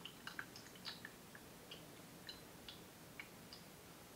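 Faint, scattered drops of tea falling from a porcelain gaiwan through a stainless steel strainer into a glass pitcher at the tail of a pour: about a dozen small, separate plinks.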